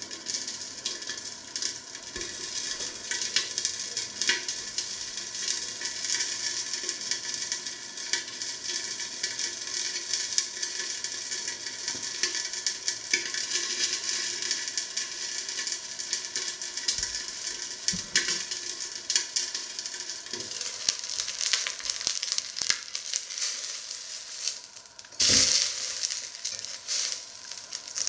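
Hot oil sizzling and crackling steadily on the stove. About 25 seconds in there is a knock and a louder rush of sizzling as the lid comes off the enamelled cast-iron pot.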